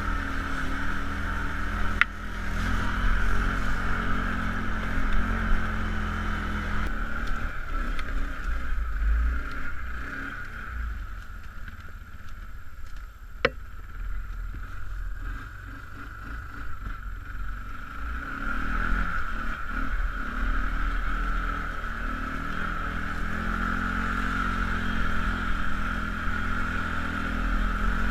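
Kawasaki ATV engine running while riding off-road, its note easing off about ten seconds in and picking up again a little before twenty seconds. A single sharp click comes midway.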